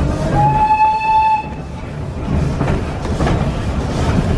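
A steam locomotive's whistle sounds one short blast of about a second, a single steady pitch. Underneath it the moving train rumbles and clatters continuously.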